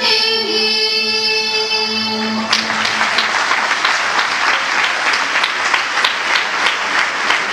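Music ending on a long held note, and about two and a half seconds in an audience breaks into applause that keeps going.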